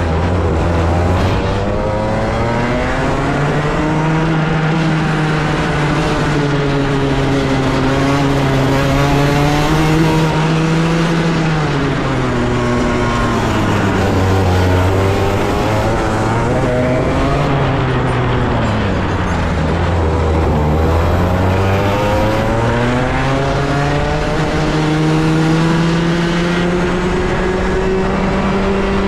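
125cc kart engine heard from the driver's seat, revving hard. Its pitch climbs and holds on the straights and drops twice for corners, about halfway through and again about two-thirds through, then climbs into a long high run that falls away at the very end.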